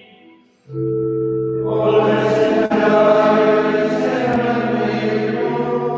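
A men's choir of Benedictine monks singing Latin chant at Vespers, with organ accompaniment. After a brief pause, a held organ chord starts about a second in, the voices come in over it a second later, and the bass note shifts near the end.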